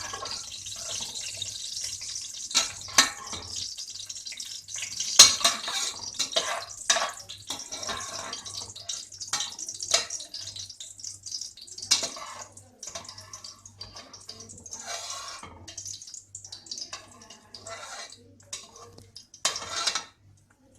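A metal spoon clinking and scraping against a pot as fried cashews and raisins are scooped out of hot ghee, with the ghee sizzling. The sizzle is strongest in the first several seconds and then fades, while sharp clinks keep coming every second or so.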